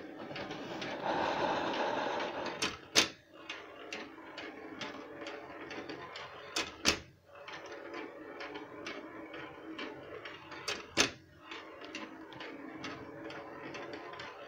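A metal ball rolling along the zigzag track of a mechanical rolling ball timer's tilting tray, with small ticks as it turns the corners. Three sharp clacks come about four seconds apart as the tray tips the other way.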